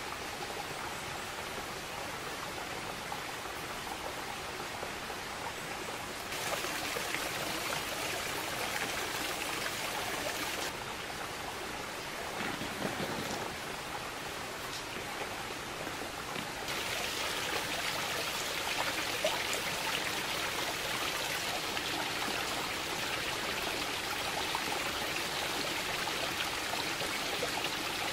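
A mountain stream running, a steady rush of flowing water whose loudness jumps up or down abruptly a few times.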